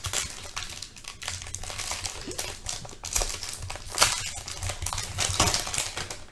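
Wrapper of a Panini Prizm football card pack being torn open and crinkled, with irregular crackling throughout.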